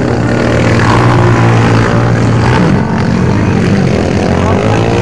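Motocross dirt bike engines racing around the track, loud and continuous, their pitch rising and falling as riders rev through the corners.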